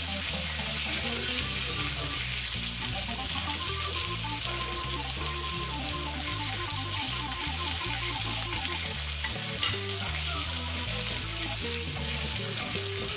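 Steak and garlic butter sizzling in a hot enamelled cast-iron grill pan, a steady high hiss as the butter melts onto the seared steak; the burner is off and the pan is sizzling on its stored heat. Quiet background music plays underneath.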